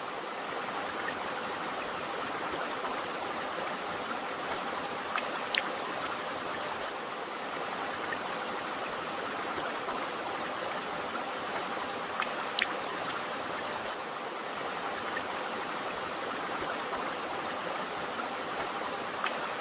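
Water flowing steadily in a stream, with a few short sharp clicks standing out about five seconds in and again about twelve seconds in.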